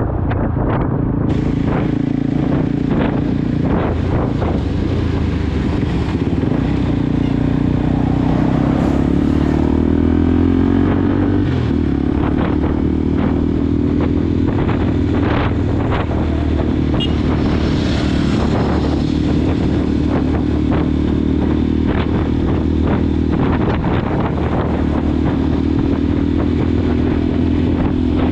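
Motorcycle engine running at cruising speed, with wind noise on the microphone and occasional short knocks. The engine note climbs a little about eight seconds in, drops back a few seconds later and rises again near the end.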